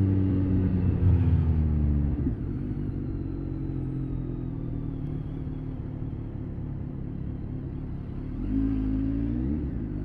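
BMW K1300S inline-four engine easing off, its pitch falling over the first two seconds, then running low and steady at crawling pace. Near the end it rises briefly as the throttle is opened, then drops back.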